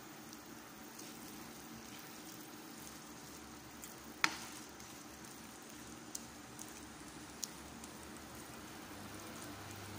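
Sticky glutinous rice in coconut milk and brown sugar sizzling steadily in a metal pan over a gas flame, as the mixture cooks down and starts to release oil at the edges. A spoon clinks against the pan a few times while stirring, sharpest about four seconds in.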